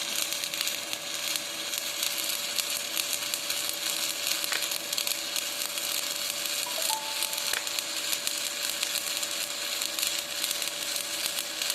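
Stick (shielded metal arc) welding arc crackling and sizzling steadily while an E7018 electrode lays a fill pass, with a steady tone underneath.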